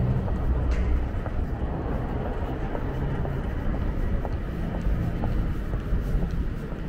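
City street ambience: a steady low traffic rumble, with a vehicle's engine drone that fades about half a second in.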